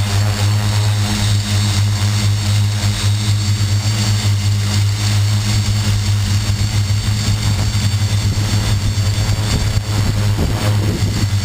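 Xaircraft X650 quadcopter's electric motors and propellers humming steadily as it hovers, heard from a camera mounted on the craft itself.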